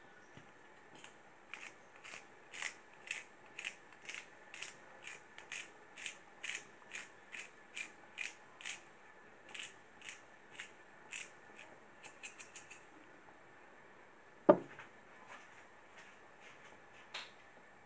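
Salt grinder twisted over a pan, giving a steady run of small crunching clicks, about two a second, that ends in a quick flurry; then a single loud knock about fourteen and a half seconds in.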